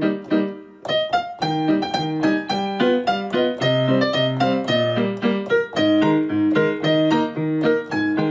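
Background piano music: a run of quick notes over chords.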